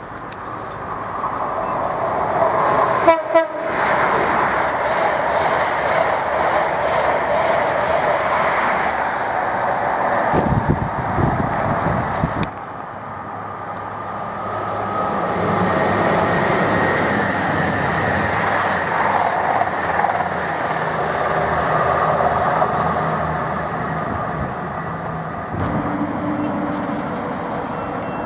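A train running past on the tracks, with a few clicks. Then a Thameslink Class 700 electric multiple unit comes in and slows to a stop at the platform, its traction equipment giving a high whine as it brakes.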